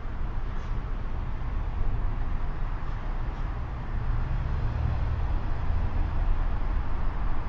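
City road traffic: a steady low rumble of passing vehicles.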